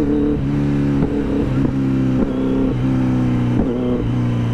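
Kawasaki Z900 rolling along after its engine has cut out from an empty fuel tank, a steady drone that drops in pitch in small steps as the bike slows.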